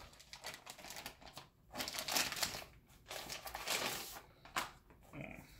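Clear plastic shrink wrap crinkling and rustling as it is pulled off a rolled poster, in several spells with short pauses between.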